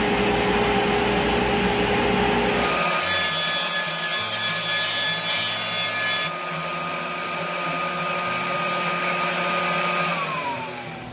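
Table saw ripping a rough-sawn 1x12 board on a jointer sled, the blade cutting through the wood with the dust collector running. Near the end the saw's pitch falls as it winds down.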